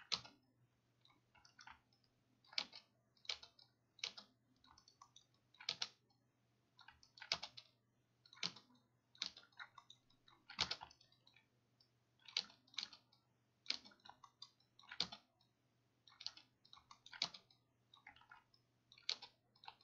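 Computer mouse clicks and keyboard key presses: irregular sharp clicks, about one or two a second, some in quick clusters. A faint steady low hum sits beneath them.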